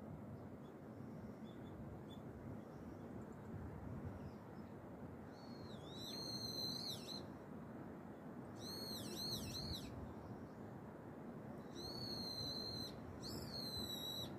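A bird giving four high, whistled calls, each about a second long with a wavering, quavering pitch, the first starting about five and a half seconds in, over a steady low outdoor rush.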